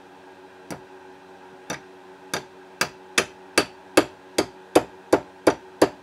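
Small magnetic hammer tapping the ejector pin into a Vz.50 pistol's steel slide. About a dozen light, sharp taps start slowly and come faster and louder, reaching two or three a second.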